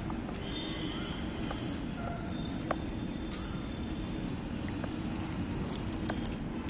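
Outdoor ambience: a steady low rumble with faint bird chirps and a few light clicks scattered through it.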